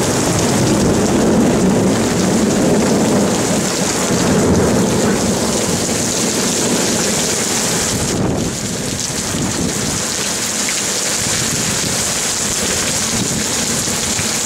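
Torrential rain pouring down in a thunderstorm, a loud steady hiss. A low rumble of thunder runs under it for the first half and eases about eight seconds in.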